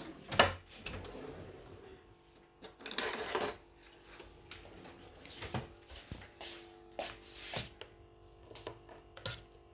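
Kitchen handling sounds: scattered light knocks, clicks and rubbing as utensils and containers are moved about on the counter, with a sharp knock about half a second in.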